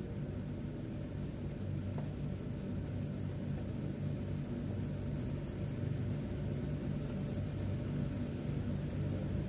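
Heavy rain heard from indoors through a window pane: a steady, muffled rumble with a few faint ticks of drops.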